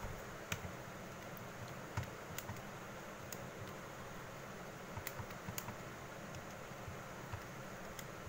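Keys of a Casio fx-991EX ClassWiz scientific calculator being pressed: scattered, irregular soft clicks over a faint steady hiss.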